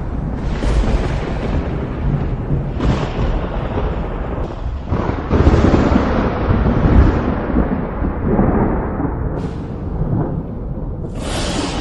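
Thunderstorm: thunder rumbling on and on, with several sharper cracks (about half a second in, near three seconds, around five seconds, and again near the end), over steady rain.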